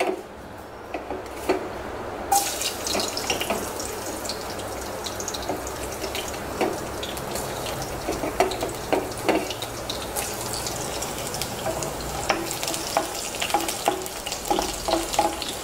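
Crushed garlic cloves sizzling in hot oil in a nonstick kadai, with steady hiss and small crackles as the tempering starts. The sizzle sets in suddenly about two seconds in, and a wooden spatula stirs the garlic near the end.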